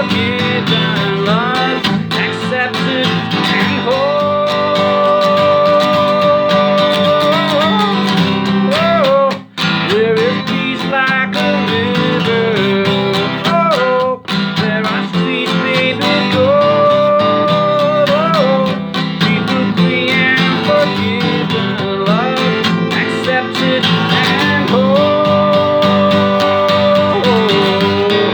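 Instrumental break of a guitar-led worship song. A lead melody of long held notes that bend at their ends runs over a full band backing, with two brief pauses in the middle.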